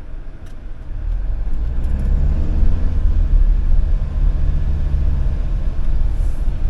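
Motorhome engine and low road rumble heard from inside the cab. It grows louder about a second in as the engine revs up and the van pulls away.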